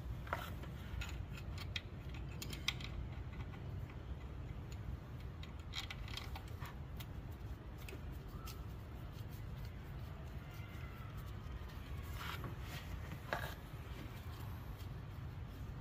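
Scattered light metallic clicks and clinks as a gloved hand handles the water pump, its pulley and bolts, over a low steady hum.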